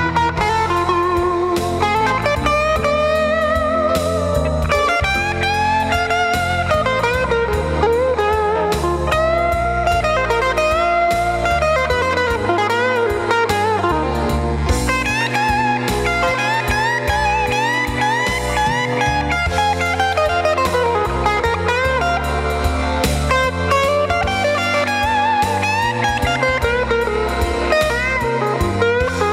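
Electric blues lead guitar on a Fender Telecaster '52 Relic through a Fender Pro Junior amp, with Okko Diablo overdrive, T-Rex delay and reverb. It plays improvised single-note phrases full of string bends and vibrato.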